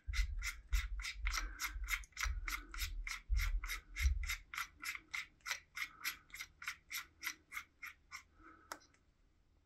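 Steady ratcheting clicks, about four a second, as the lock ring is spun by hand onto the threads of a CYC Photon mid-drive motor's spindle, with some low handling bumps in the first half. The clicking stops about eight seconds in, with one last click just after.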